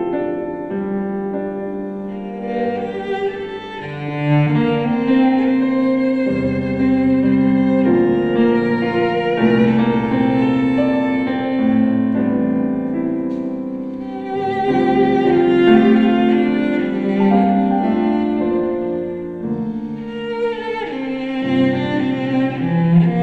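Cello and piano playing classical music: the cello bows a sustained melody of long held notes over piano accompaniment.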